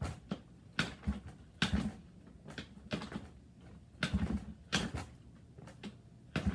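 Old dirt bike being kicked over again and again: a series of short clunks and scrapes at uneven spacing. The engine never catches; it won't start.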